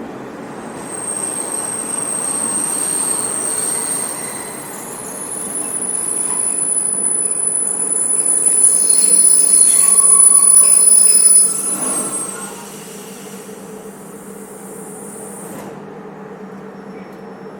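Train running on rails: a steady rumble with high-pitched wheel squeal over it. It grows louder to a peak about ten seconds in, drops off sharply near twelve seconds, then runs on more quietly.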